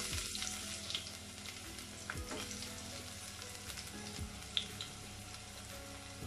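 Chopped onion sizzling in hot oil and ghee in a stainless steel pot, a steady hiss that slowly eases off, with a few sharp pops, the loudest about four and a half seconds in.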